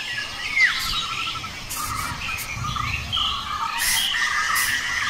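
Birds chirping and calling, with a falling whistle about half a second in and scattered short chirps after it.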